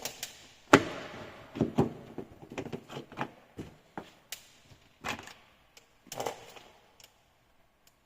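Scattered sharp clicks and knocks of hard parts being handled, the loudest about a second in, with a run of lighter taps after it.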